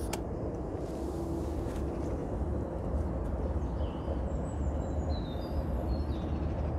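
Aftermarket electric telescopic car aerial on a Mk2 VW Golf, its motor running steadily as it winds the mast down into the wing after being switched off.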